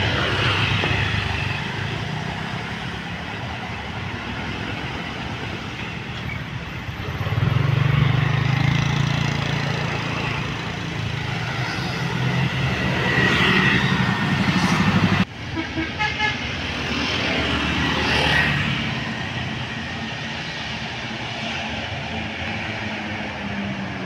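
Tour coaches' diesel engines running and pulling away, louder about eight seconds in, with short horn toots. The sound breaks off abruptly about fifteen seconds in, then the engine sound and toots go on.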